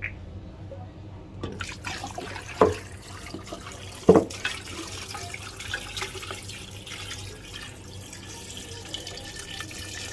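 Water poured from a plastic bottle into an aluminium pressure cooker full of raw mutton trotters, splashing steadily over the meat and bones. Two short dull knocks stand out, about two and a half and four seconds in.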